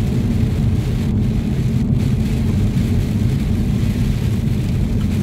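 Steady low rumble of a car driving on a wet road, heard from inside the cabin, with tyre noise and rain on the windscreen.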